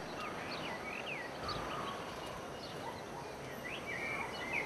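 Small birds chirping, with quick high calls that rise and fall, scattered over a steady outdoor background hiss.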